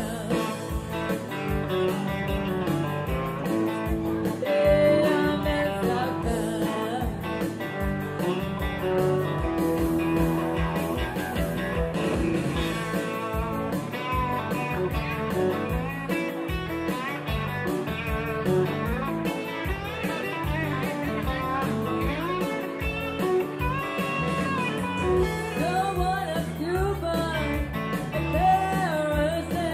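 Live music from an electric guitar and a second guitar, mostly instrumental with the guitar taking the lead. A woman's singing comes back in near the end.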